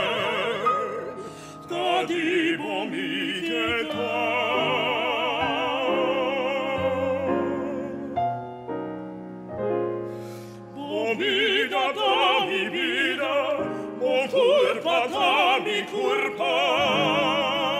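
Operatic singing with a wide vibrato over a classical accompaniment; the voice eases off briefly about halfway through, then comes back in.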